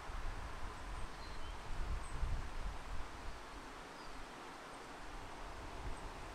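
Outdoor wind ambience: breeze rustling through trees, with gusts on the microphone that are strongest about two seconds in. A few faint, short high chirps from small birds are scattered through it.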